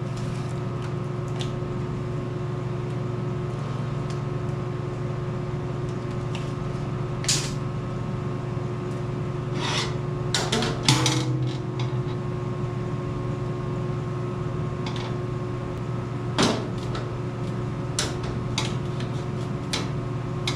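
A steady machine hum holding a few fixed tones, with occasional sharp clicks and knocks, a cluster of them about halfway through, typical of metal parts being handled and set down.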